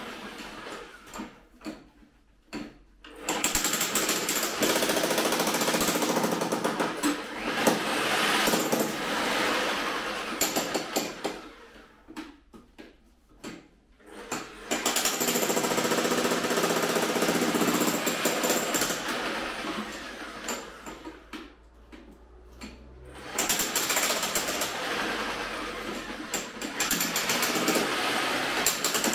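Makita HM1812 electric demolition hammer chiselling into hard rock. It hammers in long runs of several seconds and stops briefly three times.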